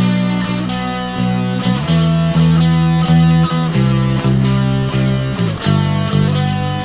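Instrumental alt-folk music between sung lines: guitars playing chords that change about every half second over a bass line.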